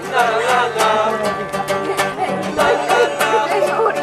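Acoustic guitar strummed in a steady rhythm, with voices over it.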